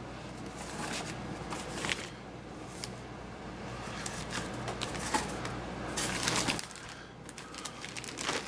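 Clear plastic bag wrapping crinkling and rustling in short scrapes as it is handled, with a louder, longer stretch of crinkling about six seconds in.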